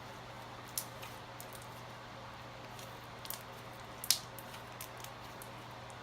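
Slime being handled, with scattered small sticky clicks and pops and one sharper pop about four seconds in, over a steady low hum.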